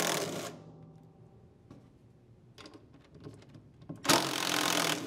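Cordless impact driver with a socket spinning off the pulley nuts of a washer's belt drive. A burst ends about half a second in, and after a few soft handling clicks a second burst of about a second starts near 4 s as the nut on the large transmission pulley comes loose.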